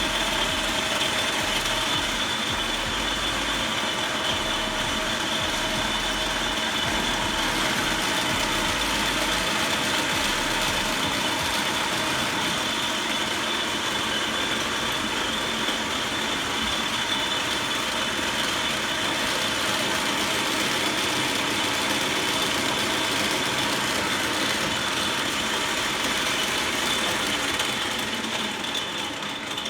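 Restored 1928 Ehrlich flat-belt metal lathe running steadily under its own motor: an even mechanical whir with a thin high whine on top, fading out near the end.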